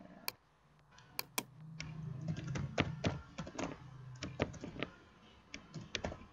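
Typing on a computer keyboard: a quick, irregular run of key clicks as a short name is typed in.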